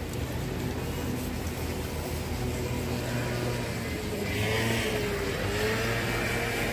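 Street traffic: a car driving past, its engine and tyres making a steady hum and hiss that swells about four seconds in.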